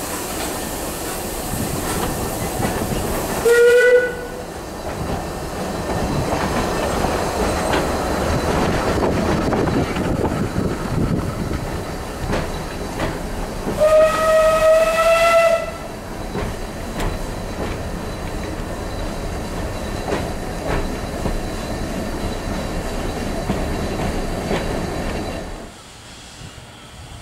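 Narrow-gauge Beyer Peacock 2-4-0T steam train's carriages rolling past with a steady rumble and clatter on the rails. A steam locomotive whistle sounds twice: a short blast about four seconds in and a longer one of about a second and a half near the middle. The sound drops to a quieter background near the end.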